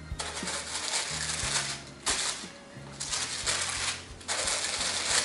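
Tissue paper rustling and crinkling in three long bursts as it is pulled back inside a cardboard shoebox, over quiet background music.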